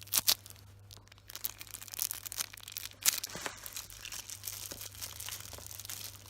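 Plastic packaging crinkling and rustling as a small squishy toy is handled and unwrapped, in irregular crackles with a few louder crinkles.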